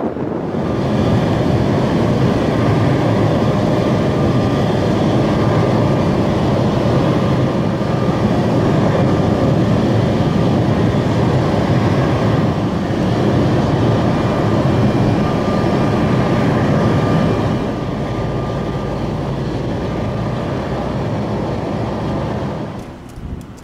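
Airbus CC-295 Kingfisher's two Pratt & Whitney PW127 turboprop engines running with the aircraft on the ground: a steady, loud drone of propellers with a thin high whine over it. It gets quieter about three-quarters of the way through, and again just before the end.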